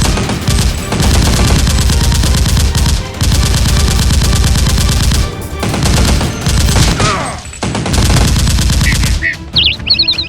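Long bursts of rapid automatic gunfire, a sound effect laid over the shooting, with brief breaks about three, five and a half and seven and a half seconds in, over background music.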